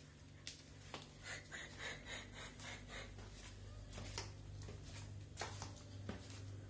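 English cocker spaniel sniffing along a tiled floor: a run of quick sniffs about a second in, with scattered sharp clicks from her claws on the tiles.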